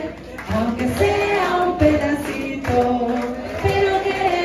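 A woman singing a melody of long held, gliding notes into a handheld microphone, over backing music with a steady low beat about once a second.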